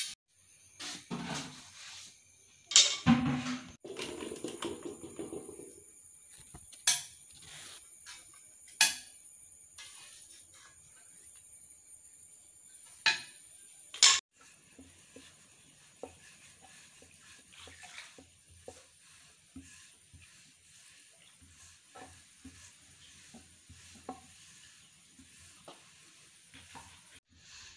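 Kitchen utensil clatter while holige dough is rolled out: a rolling pin knocking against the board and pan a few times, sharp and loud, with a short spell of rustling and soft scraping near the start and light taps later on.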